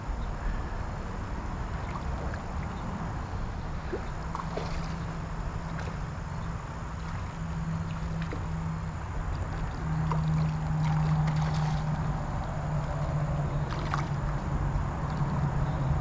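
Steady low outdoor rumble at the stream's edge, with a droning hum that comes in about four seconds in and grows louder about ten seconds in. A few faint clicks sound now and then.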